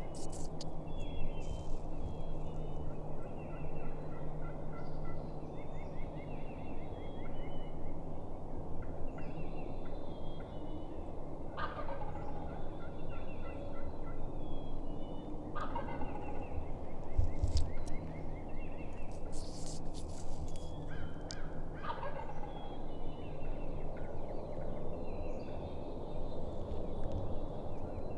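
Wild turkey gobbler gobbling three times, a few seconds apart, each call falling steeply in pitch, over the constant chirping of songbirds in the dawn chorus.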